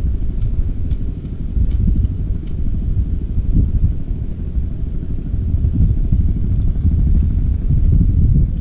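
Uneven low rumble of wind buffeting the microphone on an open fishing boat at sea, with a few faint ticks in the first few seconds.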